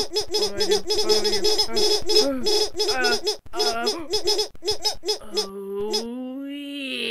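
A crowd of small cartoon creatures' high, squeaky voices calling over one another in quick, overlapping cries. About five seconds in, this gives way to one long held voice that slowly rises and then falls in pitch.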